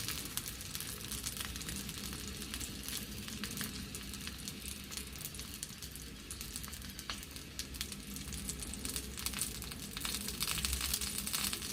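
Vienna sausages sizzling in a frying pan: a steady hiss of hot oil with many small sharp crackles and pops, growing louder near the end.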